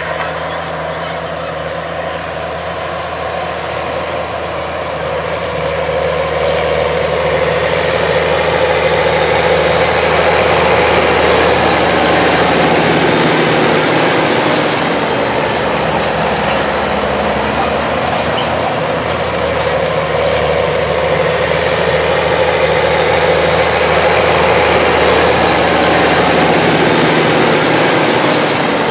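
New Holland TG210 tractor's six-cylinder turbo diesel engine running steadily under load as it pulls a tillage tool through the soil. It grows louder between about six and ten seconds in as the tractor draws near, then holds steady.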